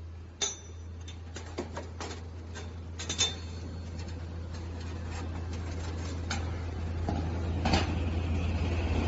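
Laser-cut sheet-steel parts clinking and knocking against the sheet as they are pushed out and lifted by hand: scattered sharp metallic clicks, the first about half a second in with a short ring. A steady low machine hum underneath grows louder toward the end.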